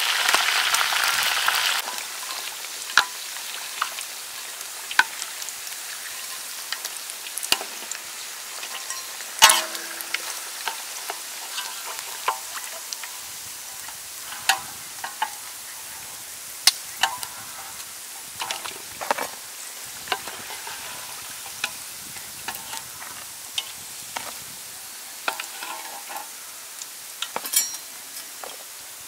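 Hot oil sizzling as skewered water snakes deep-fry in a wok, loud for the first two seconds and then a quieter steady hiss. Over it come repeated sharp knocks and scrapes of a metal spatula and ladle against the wok.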